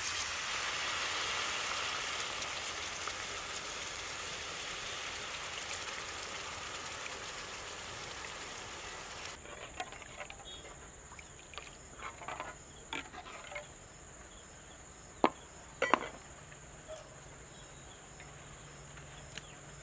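Tamarind water poured from a plastic tub into a metal pot of curry base, a steady splashing that fades over the first half. Then a metal ladle stirs the pot with light scrapes and clinks and two sharp knocks against the rim, over a steady high trill of crickets.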